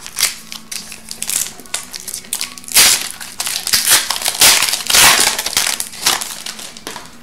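A foil hockey card pack wrapper being torn open and crinkled by hand, in irregular crackling bursts that are loudest in the middle.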